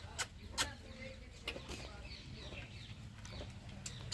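Faint bird calls in short chirps, with two short clicks in the first second.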